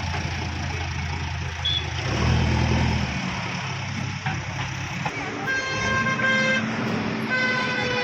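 JCB backhoe loader's diesel engine running, rising under load for about a second around two seconds in. From about halfway, two long steady pitched tones sound over the engine, each around a second.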